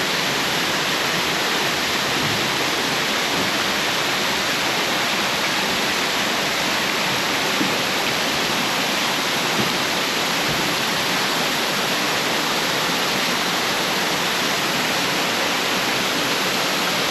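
A waterfall rushing: a loud, steady, unbroken hiss of falling water.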